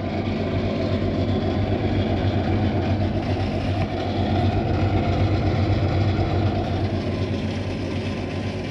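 Kitchen oven running with a loud, steady droning hum, the faulty noise the owners say it has made since they moved in and plan to have repaired.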